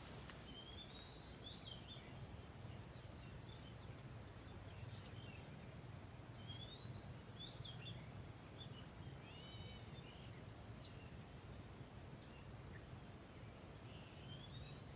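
Faint open-air ambience: small birds calling now and then, short chirps and rising whistled notes, over a steady low hum.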